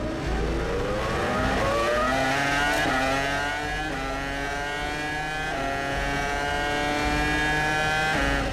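Formula 1 V10 engines accelerating hard from a race start, the pitch climbing steeply and then rising through the gears, with upshifts dropping the pitch three times.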